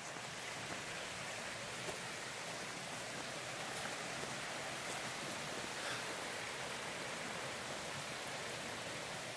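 Small rocky forest creek rushing steadily, an even hiss of flowing water, with a few faint ticks.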